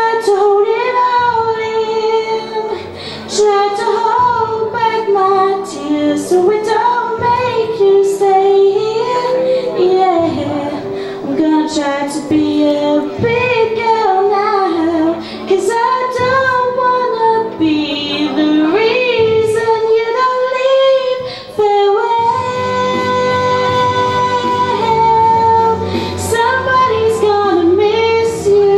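A young female voice singing a slow, sad song live, with long held notes and vibrato over a quiet accompaniment that fills out near the end.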